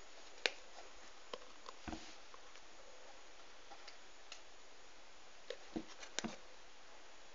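Hands handling small plastic toy pieces and a collector card: scattered soft clicks and taps, with a small cluster of them about six seconds in, over faint hiss.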